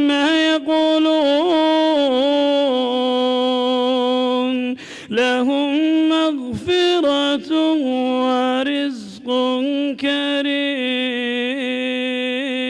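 A man reciting the Quran in the melodic tajwid style, drawing out long held notes with ornamented turns and pausing briefly for breath a few times.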